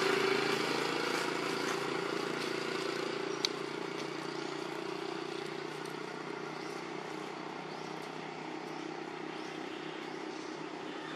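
Steady engine hum of a passing motor vehicle, loudest at the start and easing down over the first few seconds. One sharp click about three and a half seconds in.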